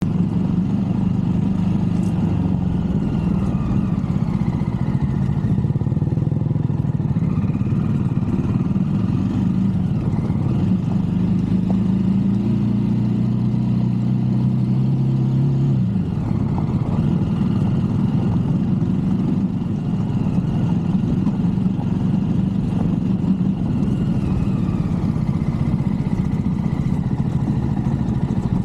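Motorcycle engine running while riding, with a steady note that changes abruptly about halfway through.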